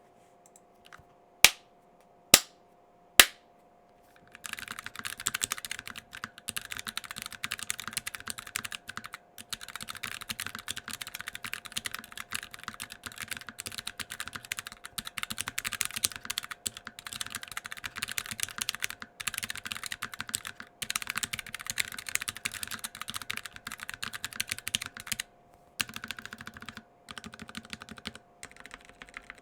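Magicforce 68 mechanical keyboard with tactile Outemu Brown switches, tape-modded, cotton-filled case and lubed, clipped stabilizers, being typed on. Three single loud keystrokes open, then fast continuous typing that breaks into shorter bursts with pauses near the end.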